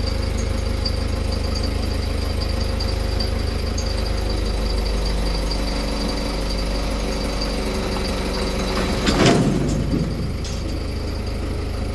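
An engine running steadily, with a short loud noise about nine seconds in.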